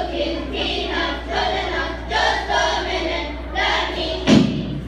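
Group of children's voices in unison, singing in short phrases over a steady low hum, with one loud thump about four seconds in.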